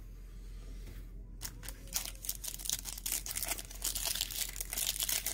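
A foil trading-card pack wrapper being torn open and crinkled by hand: a dense run of quick crackles that starts about a second and a half in.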